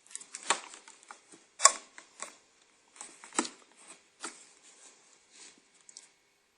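Irregular series of light clicks, taps and knocks from close-range handling work, with sharper knocks about a second and a half in and again a little past three seconds.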